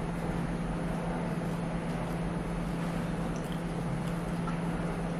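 Steady low hum over an even background hiss: room tone, with no distinct events.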